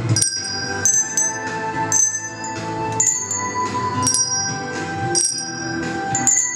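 Children's colour-coded handbells ringing a slow melody, one bell at a time, with a new note struck roughly every second and each note ringing on. A lower sustained accompaniment plays underneath.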